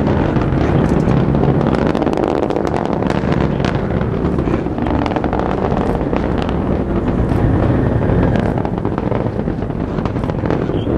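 Atlas V rocket's RD-180 first-stage engine in ascent: a loud, steady, low rumble with sharp crackling all through it.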